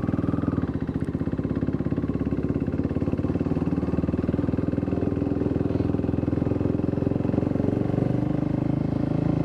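KTM RC single-cylinder motorcycle engine running steadily while the bike rides along.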